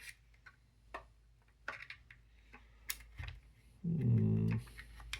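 Small clicks and taps of puzzle box pieces being handled and fitted. About four seconds in comes a short low hummed 'hmm' from the solver, the loudest sound.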